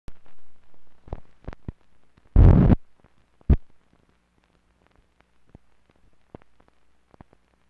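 Clicks and pops from the optical soundtrack of a 16mm film leader, with a loud burst of noise about two and a half seconds in and a sharp pop about a second later, over a faint low hum.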